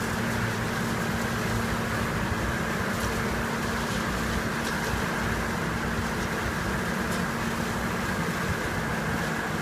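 Diesel engine of heavy construction machinery running steadily, with a constant low drone and a steady higher whine over it.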